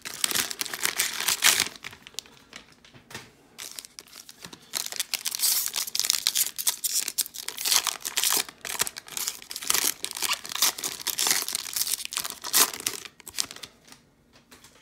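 Plastic cellophane wrapper of a trading-card cello pack crinkling and tearing as it is ripped open by hand and the cards are slid out. It comes on and off, with a quieter spell about two to four seconds in, and dies away near the end.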